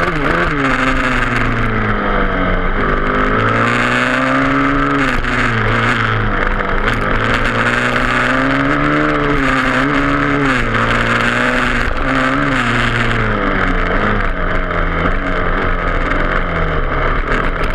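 Yamaha YZ250F dirt bike's single-cylinder engine run hard on an onboard camera, its pitch climbing and falling repeatedly as the throttle is opened and backed off through the gears. Steady wind rush on the microphone runs under it.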